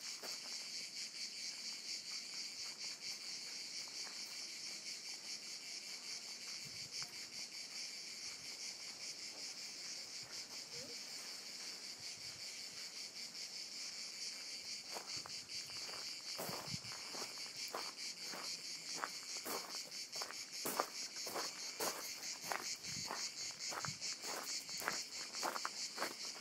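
A steady, high-pitched insect chorus shrilling throughout. From about halfway through, footsteps on a gravel path join in, roughly two steps a second.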